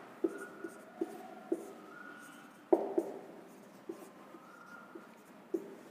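Marker writing on a whiteboard: a string of short squeaky strokes and light taps, with a sharper tap nearly three seconds in.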